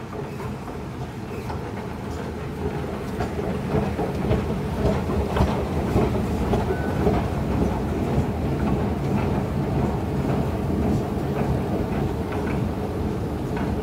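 Steady mechanical rumble of an underground MRT station, with scattered small clicks and rattles, getting louder about three seconds in.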